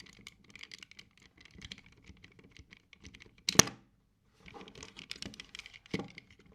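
Typing on a computer keyboard, rapid irregular key clicks, with two louder knocks about three and a half and six seconds in.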